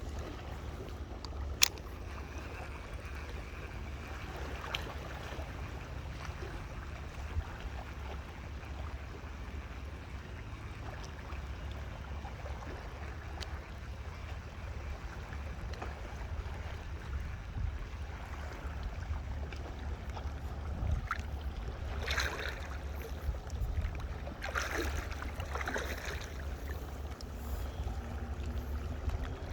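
Water lapping and splashing over a steady low rumble, with a sharp click about two seconds in and a few louder splashes near the end.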